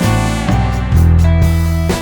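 Background music with guitar, chords changing about once a second.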